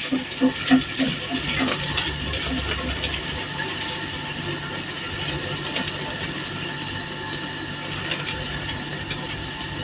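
Tube ice machine running with a steady mechanical hum. A rapid run of hard clattering knocks, about four a second, fills the first two seconds, then the hum carries on alone.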